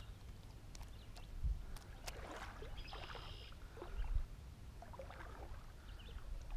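Footsteps wading through shallow floodwater: slow sloshing and swishing of water around the legs, with heavier steps about a second and a half and four seconds in, over a low steady rumble.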